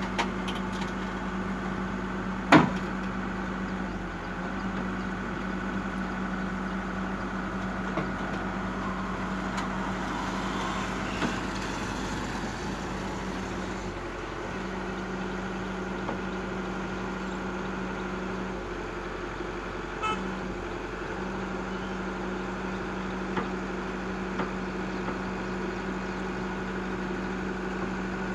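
Komatsu hydraulic excavator's diesel engine running with a steady hum as the machine crawls down off a truck bed on its steel tracks, the hum breaking off briefly twice in the second half. A loud knock sounds about two and a half seconds in.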